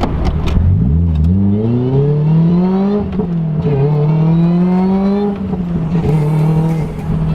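Supercharged four-cylinder Toyota engine of a Lotus Elise accelerating hard: the revs climb, dip at a gear change about three seconds in, climb again, then drop at a second shift and settle to a steady pull for the last couple of seconds.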